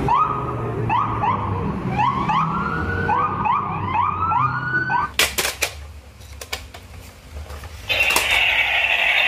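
Police siren on a SWAT armored truck, wailing in quick rising whoops, about two a second. After about five seconds it gives way to a few sharp clicks, and near the end a loud, steady hissing buzz starts suddenly.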